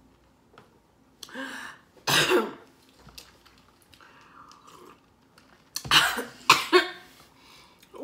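A woman coughing and clearing her throat from the burn of spicy chili-powdered tortilla chips: a couple of coughs about two seconds in, then a harder cluster of coughs near the end.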